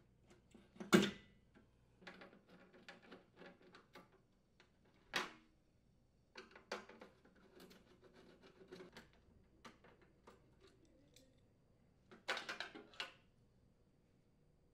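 Small metal clicks, scrapes and knocks of hand tools working on a range's sheet-metal main top: pliers working a rear mounting clip, then a screwdriver turning screws in the steel front brace. The sharpest click comes about a second in, and a quick cluster of knocks near the end.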